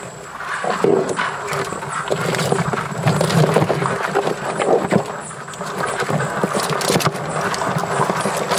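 Many live land crabs scrabbling in a container: a dense, irregular clatter of shells and legs clicking, tapping and scraping against each other and the container walls.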